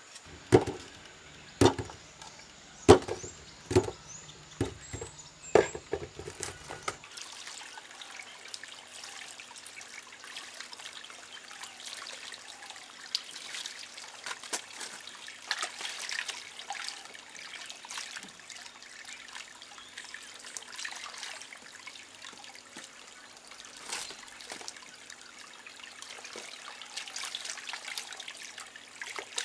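A run of sharp knocks about once a second for the first several seconds. Then hands washing peeled potatoes in a clay pot of water: light splashing, trickling and dripping as the potatoes are rubbed and lifted out.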